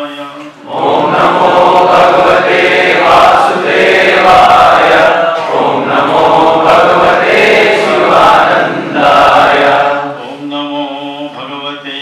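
A group of voices chanting a mantra together, loud and dense, from about a second in until about ten seconds in. Before and after it a single voice chants alone.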